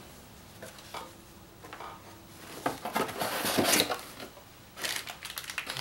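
Packaging being handled: light knocks and clicks as a foam lid and cardboard box are moved, with a burst of rustling about three seconds in as a hand rummages among the packed accessories.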